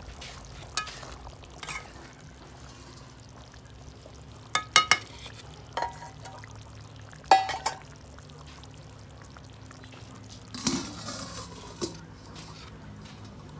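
Metal spatula and cookware clinking and knocking against a large metal cooking pot a dozen or so times, in short clusters, over a steady low hum.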